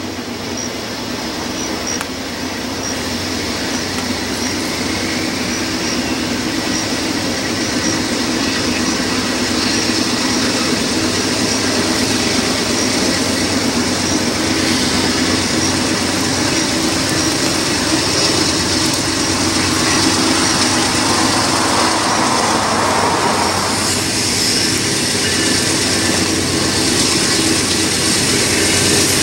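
Diesel freight locomotive approaching, its engine running steadily and growing louder as it nears.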